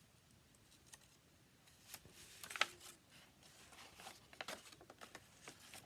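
Faint rustling and light tapping of paper being handled and lined up, with a sharper click about two and a half seconds in and a run of small clicks after it.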